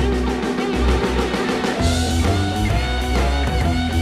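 Rock music with guitar and drums playing a steady beat; the bass and drums fill out about two seconds in.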